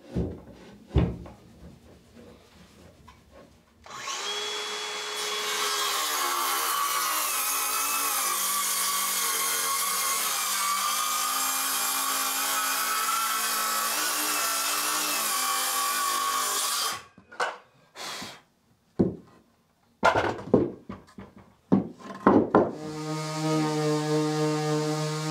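A power tool runs steadily for about thirteen seconds, its motor note wavering under load. It stops, a few sharp knocks follow, and a steady low hum starts near the end.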